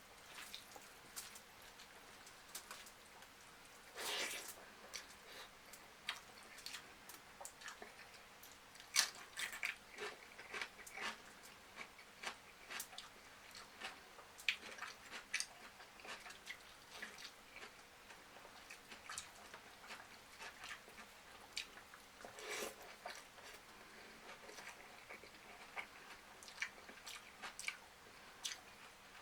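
Close-miked eating: a person chewing and biting into fried chicken, with irregular wet clicks and crunches from the mouth. Two louder, longer bursts of noise stand out, about four seconds in and again past the twenty-second mark.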